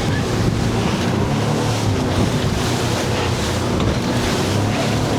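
Fishing boat's engine running steadily at speed, a constant low hum under the rush of water against the hull and wind buffeting the microphone.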